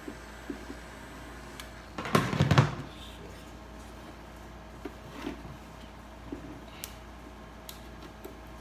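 A plastic heat gun set down on a plastic bin with a short clatter about two seconds in, then scattered light clicks and creaks of a plastic headlight housing being handled and pried apart.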